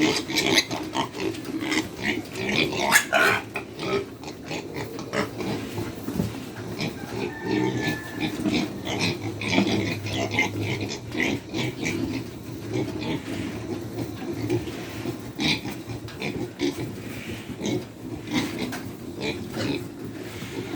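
Hungry pigs making noise at feeding time, with irregular grunting throughout and a quick run of sharp knocks in the first few seconds.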